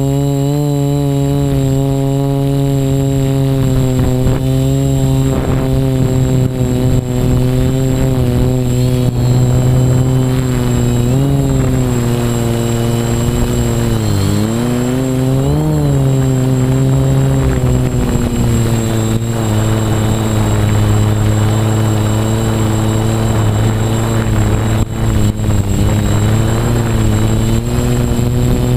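Quadcopter's electric motors and propellers buzzing in flight, heard from a camera on its frame. The pitch shifts with the throttle, dipping and rising a few times about halfway through.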